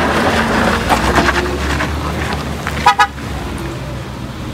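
Vehicle engine running, slowly fading, with a short horn toot about three seconds in.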